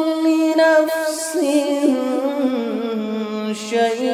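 A man's voice reciting the Quran in a melodic chanted style with no instruments, drawing out long held notes, with a run of quick ornamental turns a little under halfway and a slow fall in pitch in the second half.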